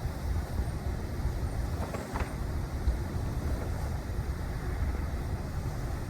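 Wind rumbling on the microphone, an uneven low buffeting, with a brief faint rustle about two seconds in.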